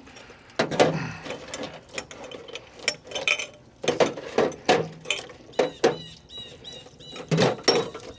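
Metal shock parts being handled and knocked together, with sharp clanks and knocks throughout. A quick run of short, high squeaks comes past the middle.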